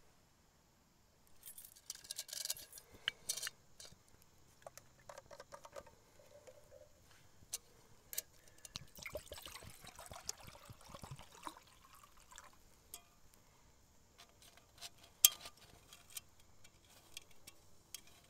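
Faint handling of light metal camp cookware around a pop-can alcohol stove: scattered clinks and rattles, with water poured from a plastic bottle into a metal cup for a couple of seconds about nine seconds in. One sharp metallic clink about fifteen seconds in is the loudest sound.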